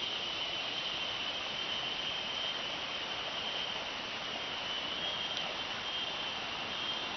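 River water rushing steadily, with a continuous high-pitched insect trill over it that starts to come and go in pulses about halfway through.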